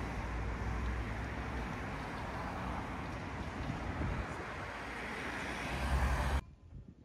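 City street traffic: cars driving through an intersection past the microphone, steady road noise with a low rumble that swells as a car passes close near the end, then cuts off abruptly.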